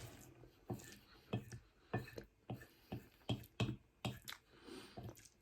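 Close-miked eating sounds: wet mouth clicks and smacks from chewing spaghetti bolognese, coming irregularly two or three times a second.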